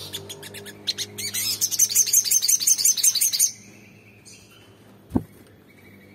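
Olive-backed sunbird (sogon) singing a fast trill of sharp, high-pitched notes for about two and a half seconds, starting about a second in. A low steady hum runs underneath, and a single dull thump comes about five seconds in.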